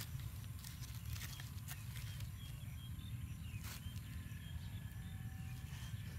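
Open wood fire crackling, with a few sharp pops spread through, over a steady low rumble of outdoor ambience.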